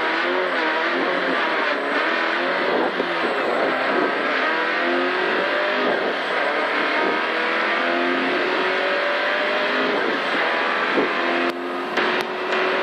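Rally car engine heard from inside the cabin, accelerating hard away from the start line: the engine note climbs in each gear and drops back at every upshift. A few sharp clicks come near the end.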